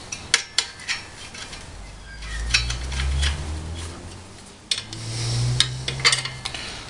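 Allen key turning M6 bolts into the steel frame of a belt grinder: light metallic clicks and scraping as the key is turned and reset in the bolt heads, with two longer spells of low rubbing.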